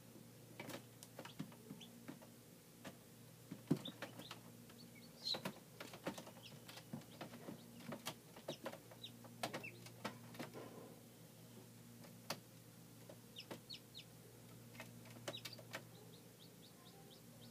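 Newly hatched chicks peeping inside an incubator: scattered short, high peeps among many small clicks and taps from chicks moving over the wire floor and eggshells, over a faint steady hum.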